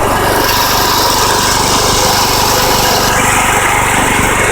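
Engine of an old MTD Yard Machines riding mower running steadily at a constant speed, with a change in its higher-pitched noise about three seconds in.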